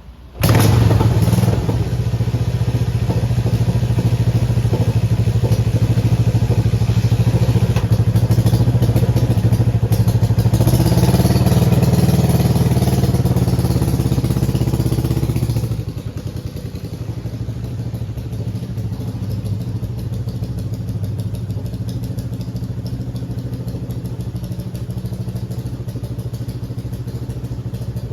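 Honda CJ360 motorcycle's air-cooled four-stroke parallel-twin engine running loud on its first ride, starting abruptly, with the revs rising around the middle. About two-thirds of the way through it drops to a quieter steady running until it cuts off near the end.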